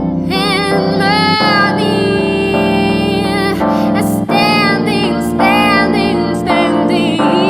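Female voice singing long held notes with vibrato over sustained piano chords and layered, looped vocal parts.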